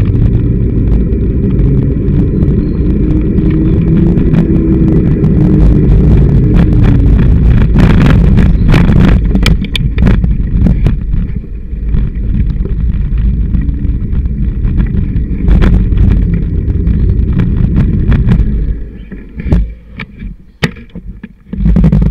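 Loud, steady low rumble of wind and road vibration picked up by a camera mounted directly on a mountain bike's handlebars as it rides along. About eight seconds in, a run of rattles and knocks comes through as the bike crosses rough, rutted ground. Near the end the rumble drops away as the bike slows, leaving a few knocks.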